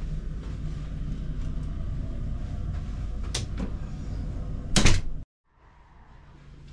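Cabin bathroom door handled and shut on a ferry, with a click and then a loud clunk near the end over a steady low hum of the ship. The sound cuts out abruptly just after the clunk.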